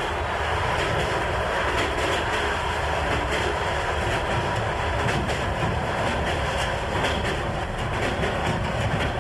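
A train running along the rails, a steady rumble with faint irregular clatter.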